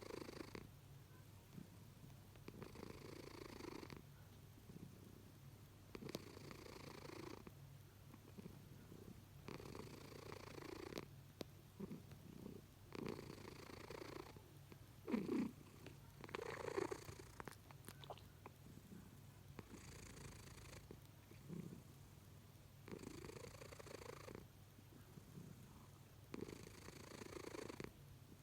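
Domestic cat snoring faintly in its sleep, one breath roughly every three seconds.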